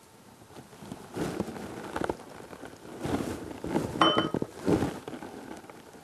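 Hands handling craft materials and a wine glass on a wooden table: several short rustles and knocks, with a brief glass clink about four seconds in.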